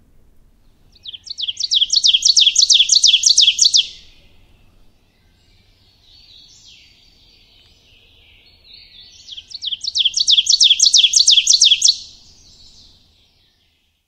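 Recording of an ovenbird singing, played back over speakers: two songs, each a rapid run of about ten repeated phrases (the bird's "teacher-teacher-teacher") growing louder over about three seconds, with fainter birdsong between them.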